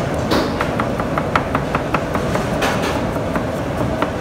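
A gloved hand mixing thick flour paste in a small bowl: a quick run of wet clicks and slaps, about five a second for a couple of seconds, then sparser, over a steady low rumble.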